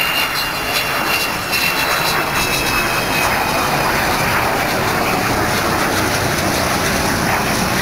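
Jet aircraft noise from the Avro Vulcan XH558's four Rolls-Royce Olympus turbojets in flight: a steady, loud rush with a thin high whine that slowly falls in pitch.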